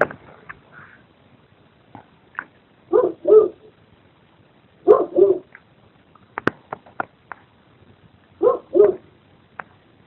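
A dog barking in three double barks, a few seconds apart, with scattered sharp clicks in between.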